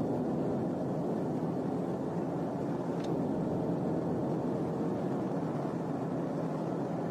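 Steady engine, road and wind noise inside a police patrol car driving at high speed, with a faint steady hum and one brief click about three seconds in.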